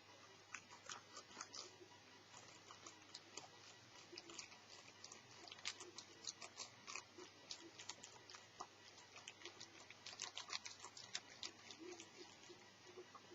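Faint, irregular light clicks and taps of an Asus Eee PC netbook's plastic case and small parts being handled, in clusters that thicken around the middle and again near the end.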